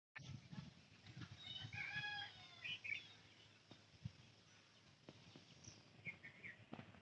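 Faint village birdsong at dawn: scattered short chirps and whistles, with a rooster crowing faintly about a second and a half in. A low rumble sits underneath.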